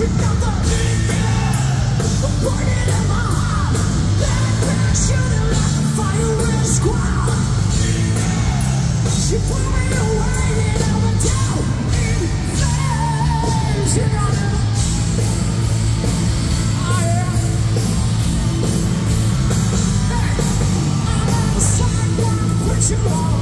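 Hard rock band playing live through a big stage PA: distorted electric guitars, bass and drums, with a male singer's shouted vocals.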